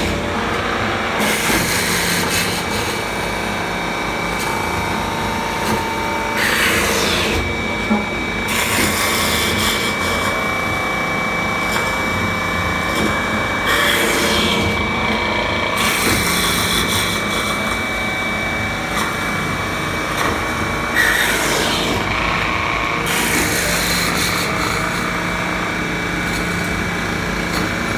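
Hempel VK10 automatic wood-turning lathe running through its cycle, its cutter working a wooden blank with a steady machine noise. A sweeping cut recurs about every seven seconds.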